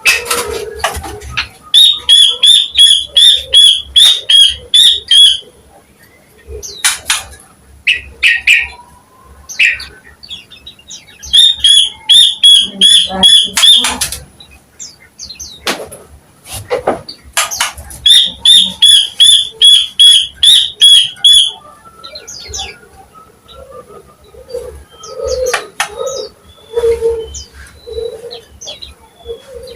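Greater green leafbird (cucak ijo) singing loudly: three phrases of a clear, evenly repeated high note, about three notes a second for three or four seconds each, with varied chips and short whistles between them. A lower repeated note joins near the end.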